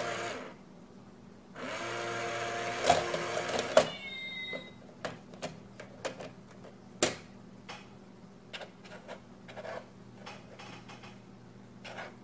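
Small motor in a box-shaped cat coin-bank toy whirring for about two seconds as its mechanism runs, followed by a short meow. Then a string of light clicks and taps as a cat paws and noses at the box's lid.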